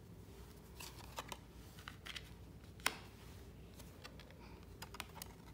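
Oracle cards from a deck being handled and laid out: a faint scattering of light clicks and taps, the sharpest about three seconds in.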